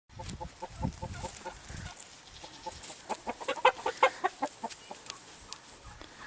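Chickens clucking: a quick even run of short clucks, then a scatter of overlapping clucks from more than one bird.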